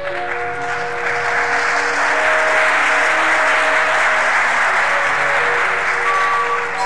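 Theatre audience applauding over instrumental stage-musical music, greeting an actress's entrance. The applause swells, holds, then dies away near the end while the music plays on.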